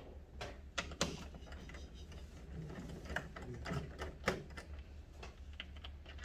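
Scattered clicks and taps of hand tools and screws against the ice maker's metal and plastic panels during disassembly, irregular, over a low steady hum.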